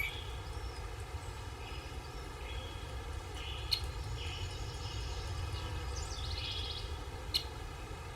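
Forest ambience: small birds chirping on and off, with one quick trill near the end, over a steady low rumble. Two sharp clicks stand out, one about halfway through and one near the end.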